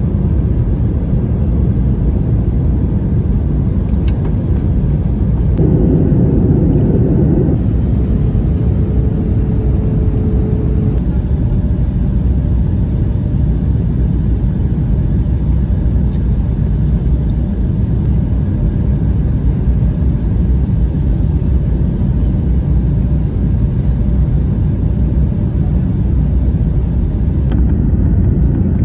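Cabin noise of an Airbus A321neo during landing, heard from a passenger seat: a steady, loud low rumble of engines and airflow that swells briefly about six seconds in.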